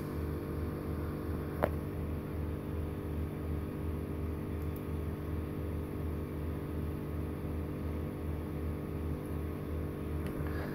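Steady electrical hum made of several even tones, with a low throb a few times a second, and a single sharp click about two seconds in.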